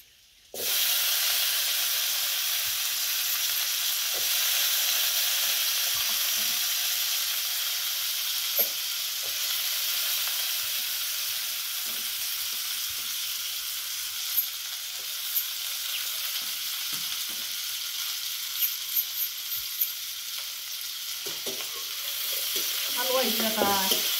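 Cut potatoes tipped into hot oil with fried onions in a kadhai, setting off a loud sizzle that starts suddenly about half a second in and settles into steady frying. A few light clicks of the metal spatula stirring in the pan come through it.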